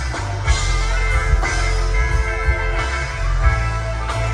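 Loud rock music with guitar over a heavy, pulsing bass.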